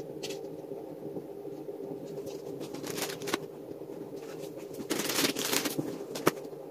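Handling of a motorcycle helmet and its plastic parts: scattered rustles of plastic wrapping and light clicks, busiest about three seconds in and again near the end, with one sharper click. A steady low hum runs underneath.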